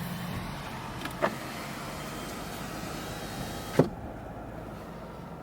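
Steady road and engine noise inside a moving car's cabin, with two short clicks. Right after the second click, about four seconds in, the high hiss drops away sharply.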